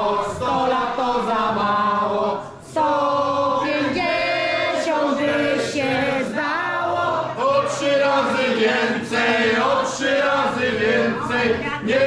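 A group of people singing a birthday song together in a room, many voices at once, with a short break about two and a half seconds in.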